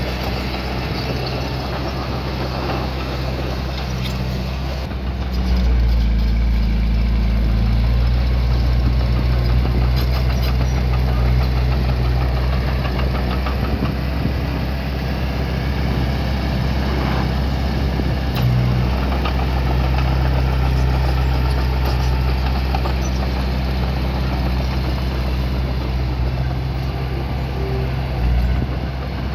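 Small bulldozer's diesel engine running steadily, growing louder about five seconds in and holding there as it works.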